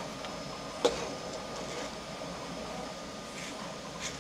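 A sharp click about a second in and a fainter one near the end, as small magnets are worked into a white 3D-printed plastic magnet-insert piece by hand. Under them runs a steady machine hum with faint high whining tones.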